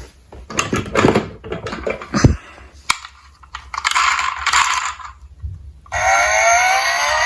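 Small diecast toy cars clicking and clattering against each other and hard surfaces as they are handled, with a rattling stretch of about a second in the middle. Near the end a police-style siren starts with a rising wail.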